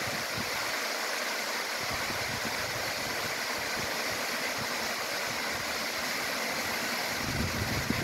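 Issaqueena Falls, a tall cascade over rock ledges, giving a steady rush of falling water. A little low rumble comes in near the end.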